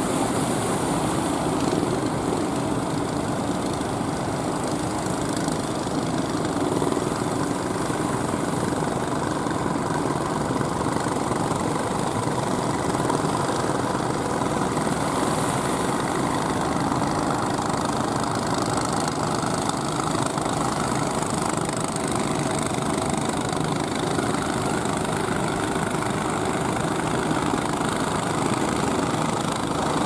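Motors of wooden fishing boats running steadily, mixed with the wash of choppy sea.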